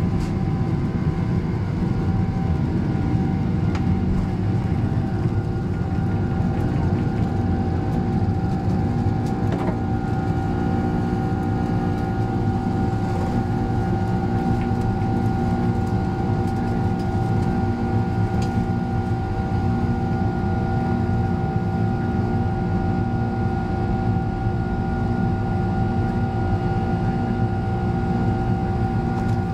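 Boeing 767-300 jet engines, Rolls-Royce RB211s, running steadily as heard inside the cabin: a constant deep rumble with a few steady whining tones above it.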